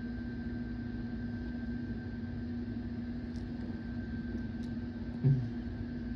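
A steady low hum with rumble, holding one even tone throughout. A single brief low thud about five seconds in.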